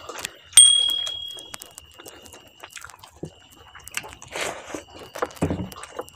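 A single bright metallic ding about half a second in, ringing out for about a second over a faint steady high whine. It is followed by soft sounds of rice and dal being eaten by hand and chewed.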